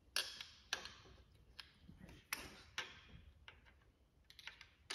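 Faint, irregular sharp metallic clicks and clinks, about eight of them, from a hand ratchet and socket working the connecting-rod cap nuts on a disassembled 318 V8 block.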